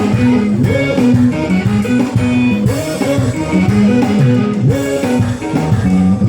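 Ethiopian pop band playing live, an instrumental passage with no singing.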